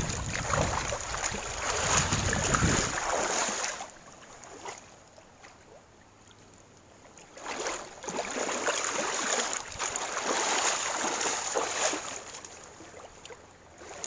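Hooked steelhead thrashing and splashing in shallow water, in two spells of a few seconds each with a quieter gap between.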